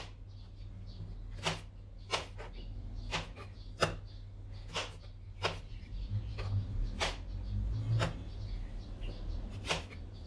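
Kitchen knife cutting green Thai eggplants into quarters on a plastic cutting board: sharp knocks as the blade goes through and hits the board, about one a second at an uneven pace.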